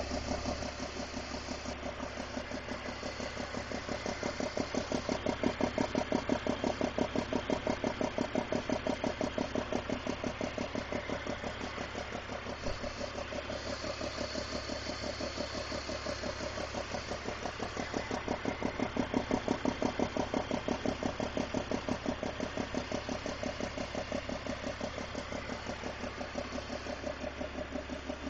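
BMW 330i's M54 3.0-litre inline-six idling with a fast, even puffing tick like an exhaust leak. The leak is from loose spark plugs letting combustion gas escape past their threads.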